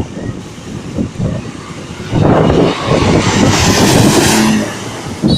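Large vehicle, a bus, passing close by: a low rumble, then from about two seconds in a loud rush of noise for about two and a half seconds that fades near the end.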